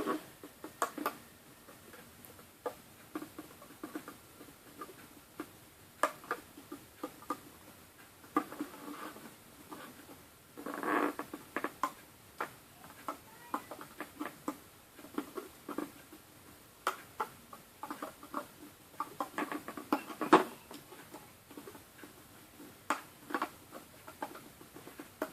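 Irregular small plastic clicks and taps of a hook tool working rubber bands on the pins of a plastic bracelet loom, with a short scratchy rustle about eleven seconds in.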